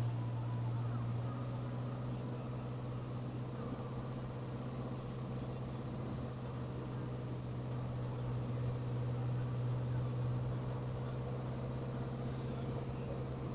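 Car engine running at a low, steady speed, a constant drone, as the car creeps along a grass track; slightly louder right at the start, then even.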